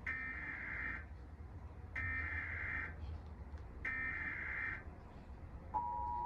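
Emergency Alert System SAME header: three bursts of warbling digital data tones, about a second each and about two seconds apart. Near the end the steady two-tone EAS attention signal starts.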